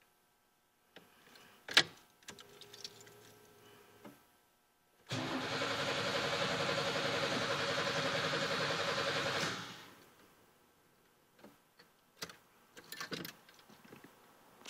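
A click, then a 3.4-litre V6 cranking on its starter with a fast, even pulse for about four seconds without catching, and the cranking stops. This is the no-start, even though the fuel pressure holds at about 45 and the rear three cylinders show just over 150 compression. A few clicks follow near the end.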